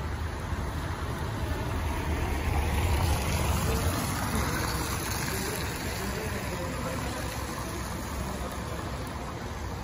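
A car driving by on a rain-wet street, its engine and tyre hiss swelling to a peak about three seconds in and then fading, over a steady low traffic rumble.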